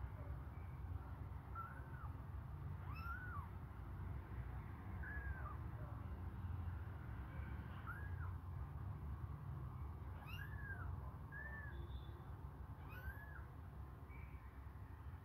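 Young kittens mewing: about seven short, high calls, each rising and falling in pitch, spaced a second or two apart, over a steady low hum.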